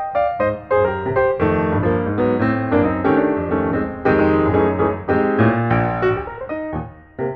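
Background piano music: a melody over chords, with a brief pause near the end.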